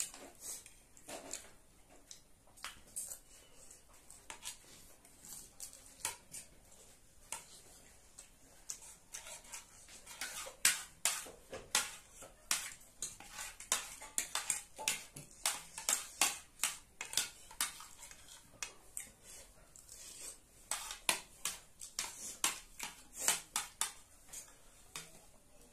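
Metal spoons and forks clinking and scraping on ceramic plates: many quick, irregular clicks, sparse at first and coming thick and fast from about ten seconds in.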